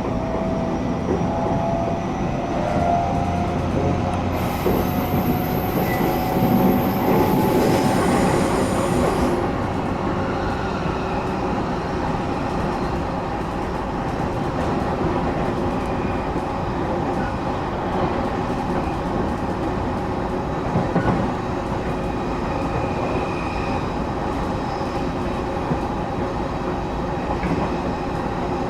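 Cabin noise of a moving passenger train: a steady rumble of wheels and running gear on the track. In the first several seconds there are faint gliding squealing tones, and a thin, very high whine from about four to nine seconds in.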